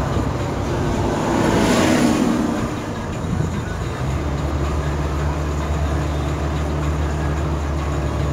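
Car engine and road noise heard from inside the cabin while driving, with a louder rush of noise about two seconds in. A steady low drone from the engine and tyres settles in from about four seconds.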